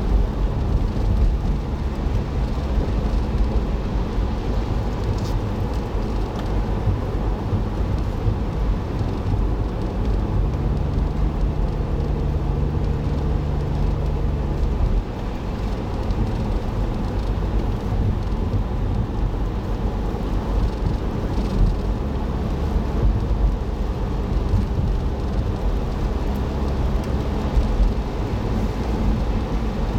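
A car driving, heard from inside the cabin: a steady low rumble of engine and tyres on the road, with a clearer engine hum held for a few seconds near the middle.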